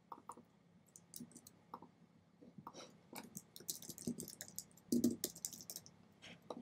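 Faint clicking of keys on a computer keyboard as text is backspaced and retyped: scattered keystrokes at first, then quicker runs of typing.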